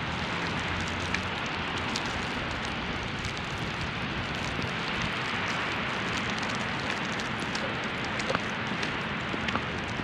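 Steady hiss of snowstorm weather on a city street, with scattered light ticks.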